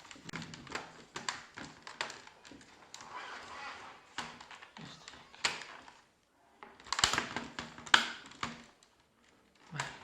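Irregular plastic clicks and taps as a laptop's plastic casing part is pressed into place and its retaining clips snap in, with a cluster of louder clicks about seven seconds in.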